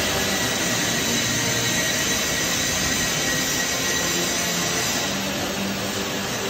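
Oxy-fuel heating torch flame hissing steadily on a steel beam, heating the metal to straighten welding distortion.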